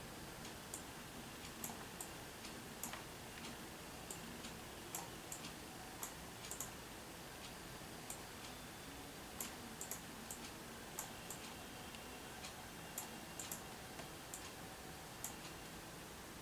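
Faint, irregular light clicks, roughly one or two a second at uneven spacing, over a steady low hiss.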